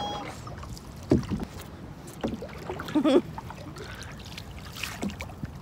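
Oars working a rowboat through the water: a few irregular knocks and a short creak from the oars in their oarlocks, over a low wash of water.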